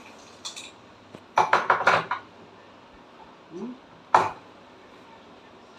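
Clatter and knocks of hard metal tools and parts being handled while opening a wet grinder: a quick run of about five knocks about a second and a half in, and a single sharp knock about four seconds in.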